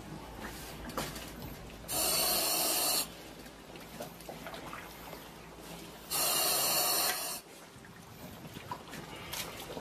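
A diver breathing through breathing apparatus: two loud hissing breaths about four seconds apart, each lasting about a second, with faint clicks between.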